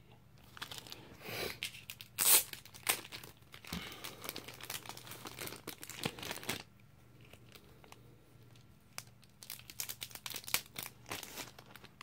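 Mail packaging being crinkled and torn open by hand, in quick irregular bursts of crackling with the loudest rip a little over two seconds in. It goes quiet for about two seconds past the middle, then the crinkling starts again.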